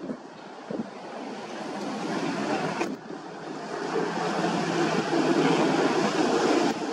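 Amphibious vehicle engine running out on the river, mixed with a steady rush of water and wind noise. The sound breaks off suddenly about three seconds in, then builds back up.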